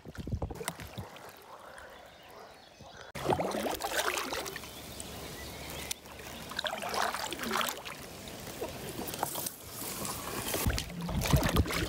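Water splashing and trickling around a kayak as the paddle strokes through it, with an abrupt jump in loudness about three seconds in.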